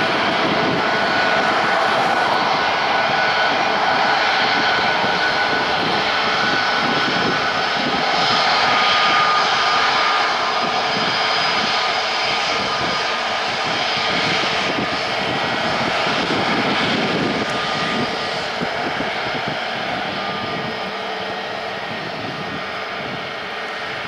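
CFM LEAP-1A turbofans of an Airbus A320neo taxiing at low thrust: a steady jet whine with several held high tones over a rushing hiss. It slowly fades over the last several seconds as the aircraft rolls past.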